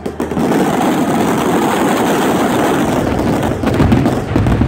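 Fireworks finale barrage: many shells bursting at once in a dense, continuous crackling and popping, with deeper booms coming in about four seconds in.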